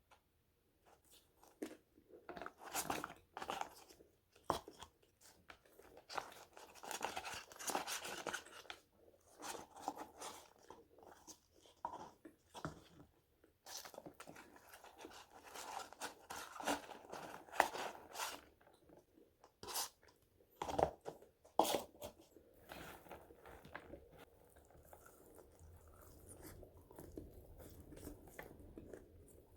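Close-miked chewing and crunching of crispy french fries, in irregular bursts with a few sharper, louder crunches about two-thirds of the way through.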